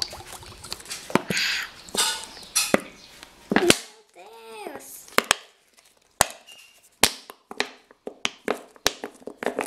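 Plastic bottle of clear glue being squeezed out into a glass bowl: repeated sharp crackling clicks from the bottle's plastic, with short hissing squirts of glue and air from the nozzle in the first few seconds.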